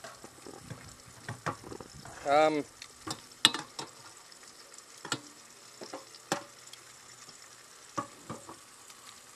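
Pieces of floured carp fillet sizzling in a frying pan, a faint steady hiss, with scattered sharp clicks of a utensil in the pan. A man gives a short hummed "mm" about two and a half seconds in.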